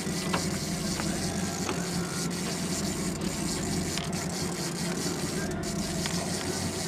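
Fishing boat's engine running steadily at trolling speed, a low even drone under a hiss of wind and water, with a few faint ticks.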